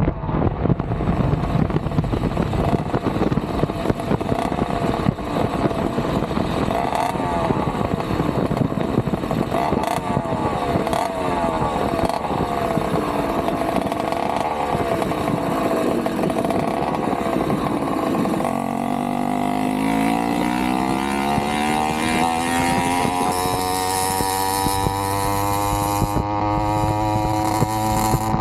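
Avenger 85 two-stroke motorized-bicycle engine, with a Nibbi PE19 carburettor and a repaired Gomax exhaust pipe, running under way. Its revs rise and fall repeatedly, then drop low about two-thirds of the way through and climb steadily as the bike accelerates.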